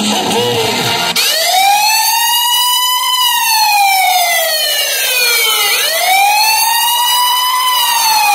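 Music cuts off about a second in and a wailing siren takes over, slowly rising and falling in pitch in long sweeps, about two full rise-and-fall cycles.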